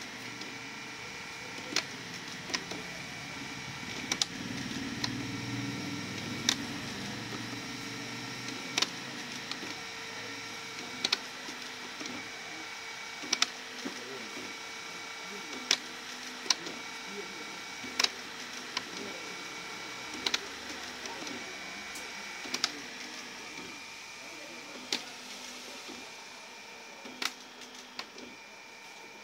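HP LaserJet Pro MFP M177fw colour laser printer running with its side cover off as it initializes. It gives a steady mechanical whine, a deeper motor hum that swells a few seconds in, and sharp clicks every second or two.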